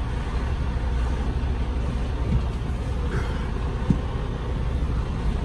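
Freightliner semi truck's diesel engine idling, a steady low rumble heard from inside the cab.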